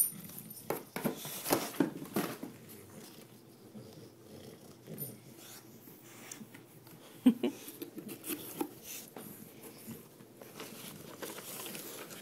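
A bulldog sniffing with noisy, wheezy breathing as he noses through a gift box. Tissue paper and cardboard crackle and rustle in irregular bursts as he digs.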